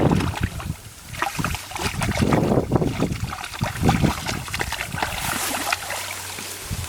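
Muddy water splashing and sloshing in uneven bursts, with many small wet clicks and crackles, and low rumbling wind on the microphone.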